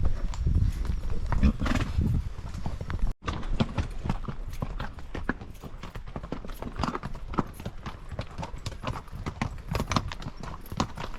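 Horses' hooves clip-clopping at a walk, an uneven run of sharp hoof strikes from more than one horse, broken by a momentary cut about three seconds in.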